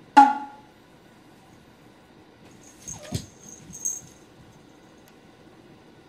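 Cat calls: a loud, short cry about a quarter second in, then around three to four seconds in a short, falling low call with some hissy noise as two cats face off.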